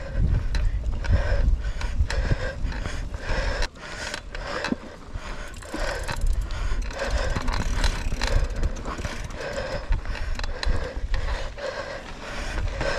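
Mountain bike rattling and clicking as it rides over rough dirt singletrack, with a steady low rumble of wind on the mic.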